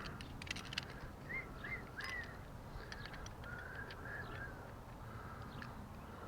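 A bird calling in the background, a few short chirps about a second and a half in, over light clicks and taps.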